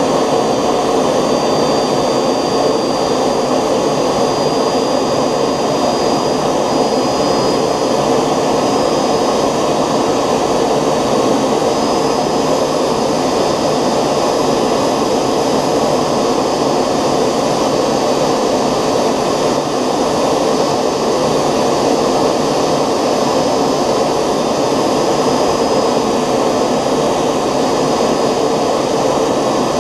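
Homemade 3D-printed model gas turbine (jet engine) running steadily at constant speed: an even roar with a thin, steady high whine above it.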